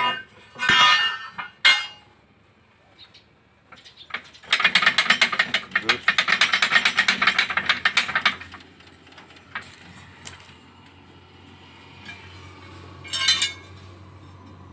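Rapid metallic ratcheting clatter for about four seconds, starting about four seconds in, from tool work on a truck's leaf-spring mounting. Brief knocks and a voice come near the start, and a short burst near the end.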